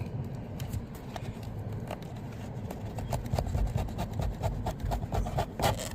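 Clicking and crackling of a pleated cabin air filter's frame and media rubbing against its plastic housing as it is wiggled and pulled out, the clicks coming thicker in the second half, over a low steady rumble.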